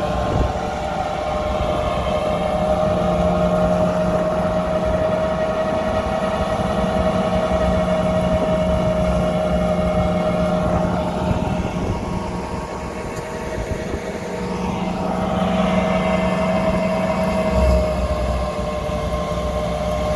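Tractor-driven threshing machine (patoz) running steadily under the tractor's engine while it threshes cereal straw, a constant high whine over a low hum. It eases a little for a couple of seconds past the middle.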